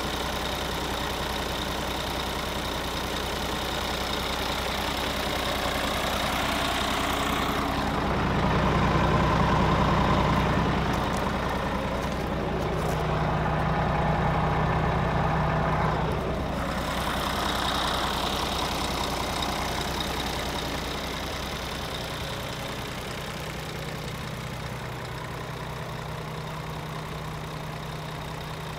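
Scania R450 tractor unit's 13-litre straight-six diesel idling steadily, getting louder for several seconds midway, then easing off a little.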